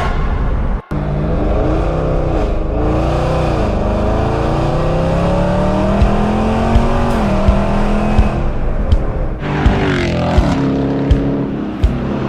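Hemi V8 Dodge muscle car accelerating hard, its engine note climbing steadily, then dropping and climbing again about nine and a half seconds in as it shifts gear.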